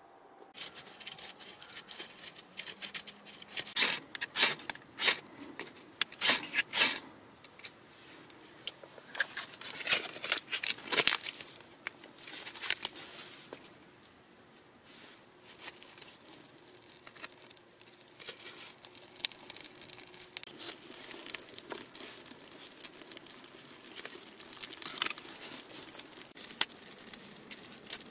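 Dry bark and kindling being torn, crumpled and snapped by hand while a fire is laid in a small clay fireplace: a run of sharp, irregular crackling tears, busiest in the first half and sparser after.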